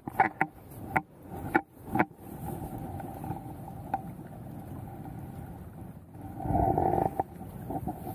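Steady rush of flowing spillway water, with a few sharp knocks and rubbing from the angler's jacket and rod against the chest-mounted camera in the first two seconds, and a louder spell of rustling near the end.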